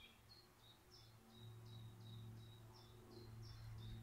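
Faint forest ambience: a steady run of short high chirps, about four a second, over a low steady hum.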